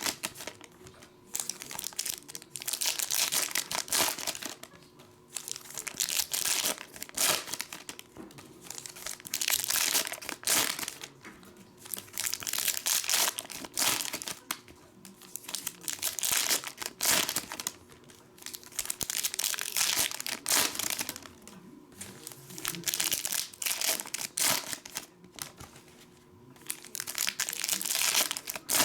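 Plastic wrapping crinkling and tearing in repeated bursts every second or two as sealed trading-card boxes and packs are ripped open.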